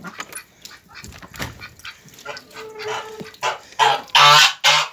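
Clicks and knocks as a wooden shed door is opened, then domestic geese honking: four loud, harsh honks in quick succession near the end. The keeper takes the calling as the geese protesting that their water is low.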